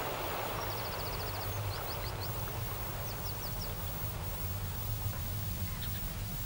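Outdoor ambience of a steady low rumble, with a small songbird's song over it: a quick high trill about half a second in, then a few short high chirps around two and three seconds.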